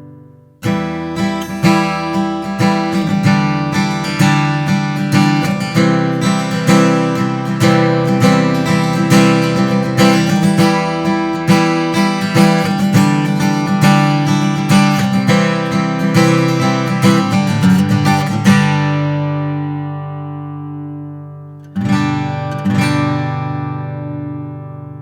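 Gibson Songwriter Studio acoustic guitar strumming chords in a steady rhythm. About three-quarters of the way through, a chord is left to ring out and fade. A final strum or two near the end rings and fades.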